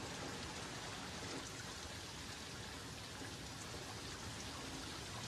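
Faint, steady hiss of noise with a few soft ticks scattered through it.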